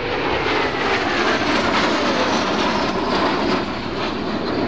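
Two Alpha Jet trainers flying past in close formation, each powered by twin Larzac turbofans, making a steady rushing jet noise. A faint whine slides down in pitch over the first half as they pass.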